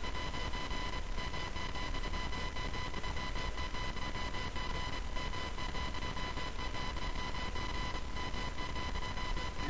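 Steady hiss with a constant high-pitched electrical whine: background recording noise.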